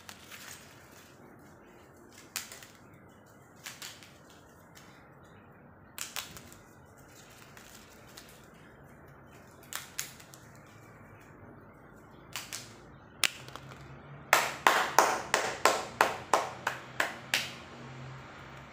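Small toy snap-pops cracking on a tiled floor: single sharp pops scattered through the first dozen seconds, then a quick run of about a dozen, about four a second, near the end.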